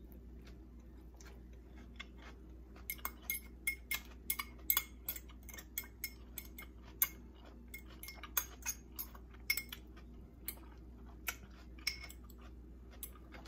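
Eating crunchy cabbage slaw with candied nuts: irregular crisp clicks and crunches, a few a second, starting about three seconds in, over a faint low hum.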